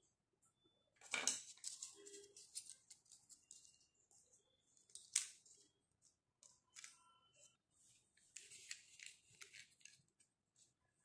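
Small plastic dollhouse toy pieces handled and set down on a table: light clicks and taps with soft rustling, the sharpest clicks about a second in and again about five seconds in.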